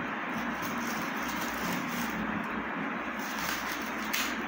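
Shiny plastic gift wrap crinkling as a small gift box is pulled open by hand, over a steady background noise.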